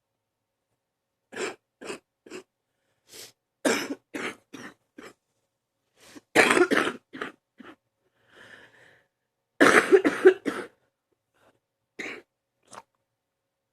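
A person's deep morning cough, in repeated fits of quick coughs. The loudest two fits come about six and ten seconds in, with a couple of single coughs near the end.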